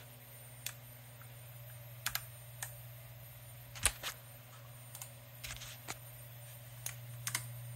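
Scattered single keystrokes on a computer keyboard, about a dozen short clicks spaced unevenly, over a low steady hum.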